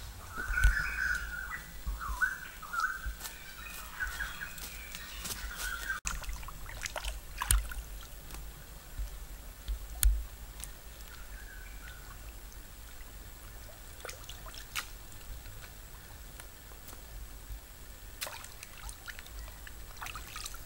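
Birds chirping for about the first six seconds. Then shallow stream water splashing and trickling as hands wash raw chicken pieces in a woven bamboo basket, with scattered small splashes and drips.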